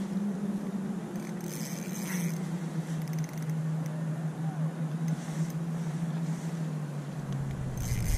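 A small boat's motor running with a steady low hum that slowly sinks in pitch, then drops lower and gets louder near the end. Brief scratchy noises come about two seconds in.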